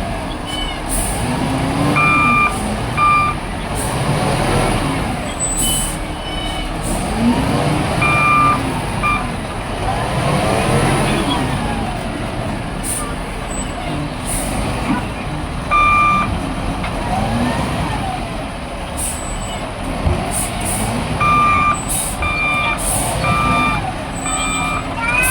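Excavator's diesel engine working hard while loading a tipper, its note repeatedly rising and falling as the hydraulics take load. Short electronic reversing-alarm beeps come in several groups, most often near the end.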